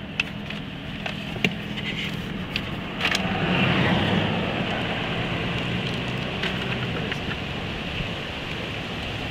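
Truck engine and tyre noise while driving: a steady low hum with a few small clicks, swelling about three seconds in and then easing back.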